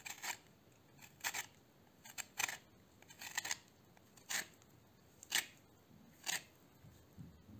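Lemon peel rubbed against a small stainless steel hand grater, zesting it: about seven short scraping strokes, roughly one a second.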